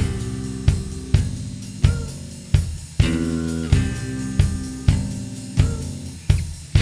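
A band playing an instrumental passage: a heavy drum kit beat, with a hard hit about every two-thirds of a second, over held electric guitar and bass chords.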